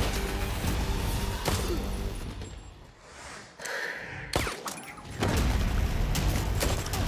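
Action-film soundtrack: a low, droning orchestral score under sharp hits and impact effects. The music drops away briefly around three seconds in, a sharp crack lands a little after four seconds, and the score comes back loudly at about five seconds.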